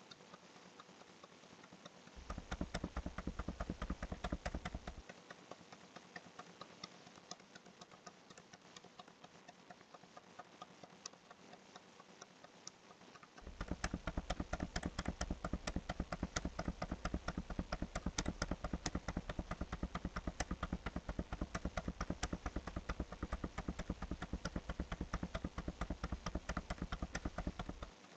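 Rapid, even clicking of a computer mouse scrolling a document: a short louder run about two seconds in, fainter ticking after it, then a long louder run from about halfway through to the end.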